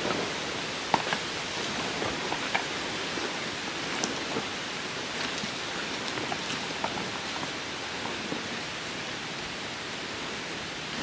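Steady outdoor hiss with scattered faint ticks and clicks.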